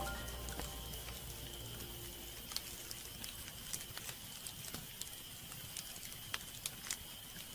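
Wood fire crackling: irregular small pops and snaps over a soft hiss of burning logs. A trail of background music fades out in the first second or two.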